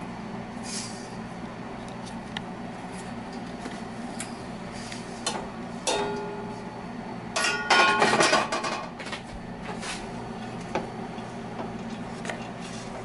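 A spatula scraping vegetables out of a stainless steel frying pan into a pot of rice, with light clicks and knocks of utensil on metal. About seven seconds in there is a louder stretch of scraping and clanging against the pan that lasts about a second and a half. A steady low hum runs underneath.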